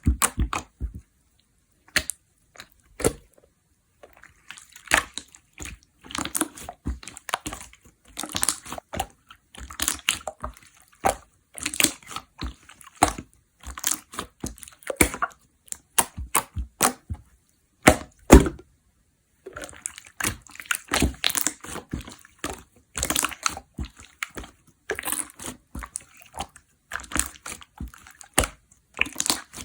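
Slime being squeezed, stretched and pressed by hand, giving runs of wet, sticky pops and clicks in irregular bursts with brief pauses.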